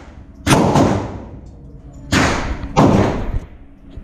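Gunshots in an indoor shooting range: three shots, about half a second in, about two seconds in, and again just after that, each followed by a long echo off the range.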